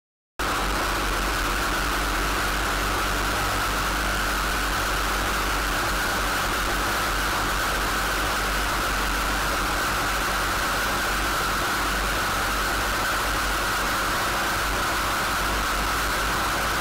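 Brushcutter running at full speed with its Cainz JIS-standard carbide-tipped saw blade held against rock: a steady, loud grinding hiss over the engine, abrading the blade's tips in a wear test. It starts abruptly just after the beginning and holds even throughout.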